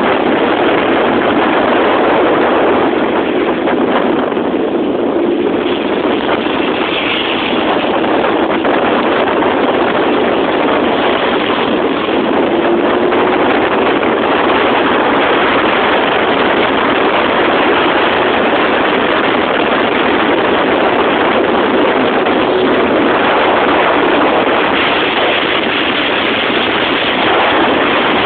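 Motorcycles at highway speed heard from a moving motorcycle: a loud, steady rush of wind on the microphone with engine noise underneath, and a faint engine tone that wavers slightly in pitch.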